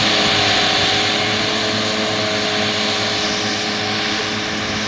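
Valtra S 353 tractor's diesel engine and the Pöttinger Novacat X8 disc mowers running steadily while cutting grass, a constant drone that slowly grows quieter as the rig pulls away.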